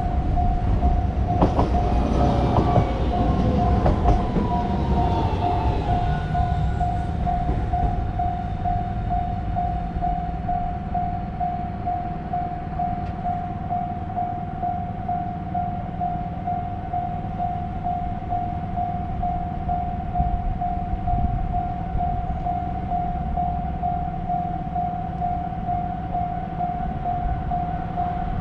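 Japanese level-crossing warning bell ringing the "kan-kan" alarm in a steady, even pulse on one tone. A train rumbles past over the first several seconds, with clacks and a falling whine; after that the bell goes on alone.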